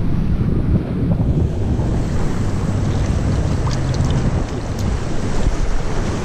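Wind buffeting the camera microphone in a steady, loud low rumble that rises and falls, with sea surf underneath and a few faint clicks around the middle.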